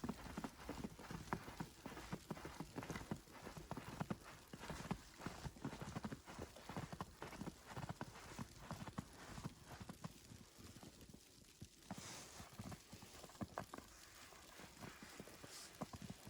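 Footsteps crunching through fresh powdery snow in a steady walking rhythm. They grow sparser and fainter after about ten seconds.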